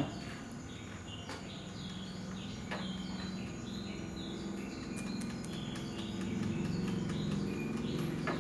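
Small birds chirping in many short, quick notes, over a steady low hum.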